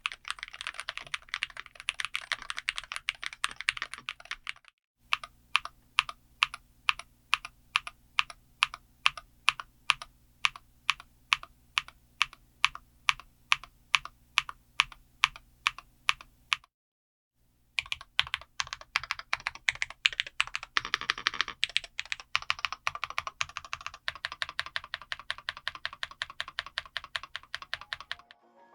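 Womier SK75 TMR keyboard with Outemu Tea Magnetic switches being typed on. There is a run of fast typing, then a steady series of single keystrokes about two and a half a second, then fast typing again, with brief silent breaks between the sections.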